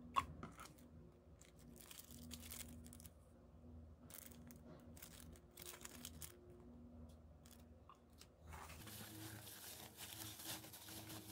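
Faint rustling and crinkling of plastic packaging being handled, with one sharp click just after the start. Near the end it turns into a denser crinkling of bubble wrap around the unit being handled.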